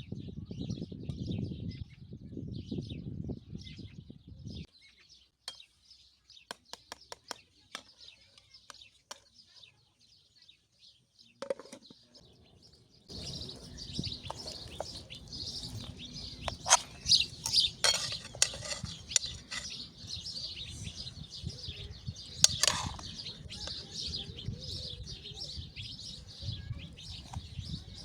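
Birds chirping and twittering, dense through much of the stretch, with occasional sharp clinks of tableware. A quieter stretch in the first half holds only scattered clicks.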